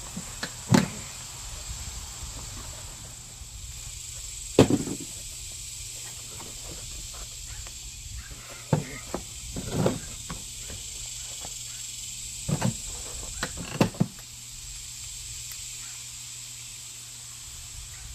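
Tools being handled: scattered knocks and clicks, about half a dozen, the loudest about a second in and again about four seconds in.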